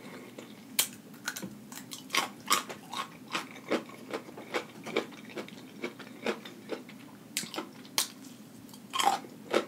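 Close-miked chewing of crunchy food: sharp wet crunches and mouth clicks, irregular at about two a second, with a louder bite just before the end.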